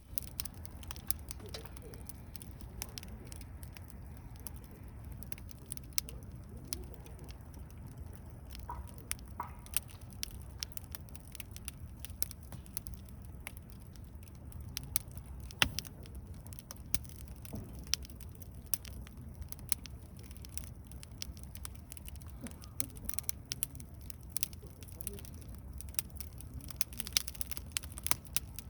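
Wood campfire crackling in a fire-pit stand: irregular sharp pops and snaps over a low steady rumble.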